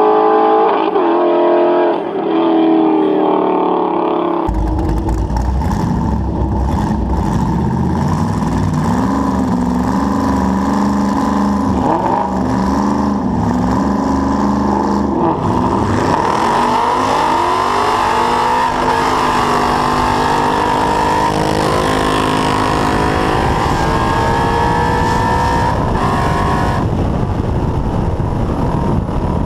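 Car engine heard from inside the car during a street drag race. It is held at raised revs with wavering pitch on the line, then launches about sixteen seconds in and pulls hard under full throttle, rising in pitch through the gears for roughly ten seconds.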